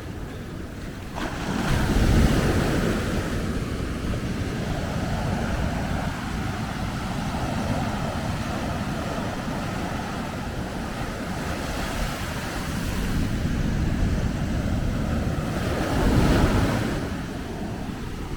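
Ocean waves breaking and washing up the beach, with a loud surge about two seconds in and another near the end, and wind on the microphone.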